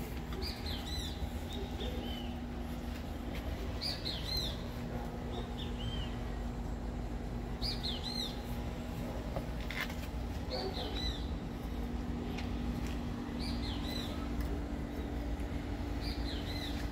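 A songbird repeating the same short phrase of quick rising and falling notes about every three seconds. Under it run a steady low hum and a continuous low rumble.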